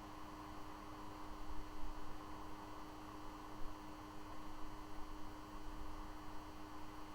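Steady electrical hum from the live nest-cam's audio, one low tone held at a single pitch over a faint, even hiss of background noise.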